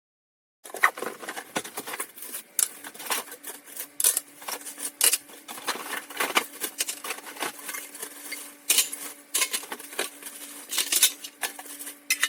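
Carbon steel baking pans being handled, clinking and clattering against each other and a hard surface in a run of irregular sharp knocks, with a faint steady hum underneath from a few seconds in.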